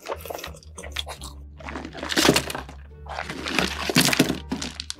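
Background music with a steady bass line under close-miked eating sounds: chewing and crunching of chicken, with two loud crunchy stretches about two seconds in and again around four seconds.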